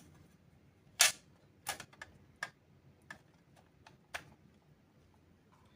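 A handful of sharp, irregular clicks and taps, the loudest about a second in, from small parts and the casing of a mini PC being handled while it is closed up.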